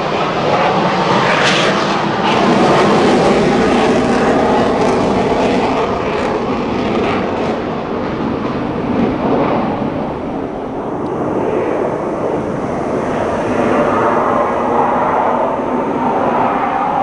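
Loud jet aircraft noise: a continuous roar that swells and eases. About halfway through, the high hiss fades and a lower roar remains.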